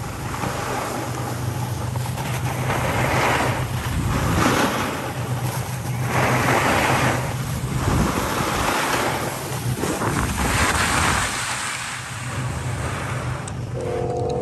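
Wind rushing over the microphone while skiing downhill, with the hiss of skis scraping over packed snow swelling and fading every couple of seconds as the turns are made.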